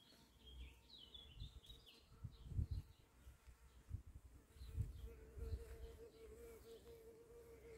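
Faint steady buzz of a flying insect, clearer in the second half, with small birds chirping in the first couple of seconds and a few low thumps of handling noise.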